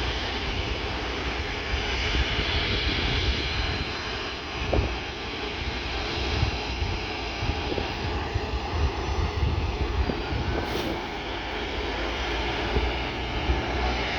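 Boeing 737-300F's CFM56-3 turbofan engines running, heard as a steady rushing noise over an uneven low rumble.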